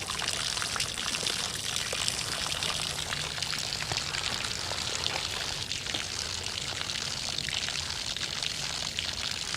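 Water pouring steadily out of bullet holes in a water-filled plastic barrel, an even splashing trickle with no let-up.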